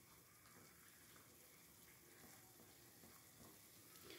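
Very faint simmering of minced meat cooking in water in a frying pan, with soft stirring from a silicone spatula.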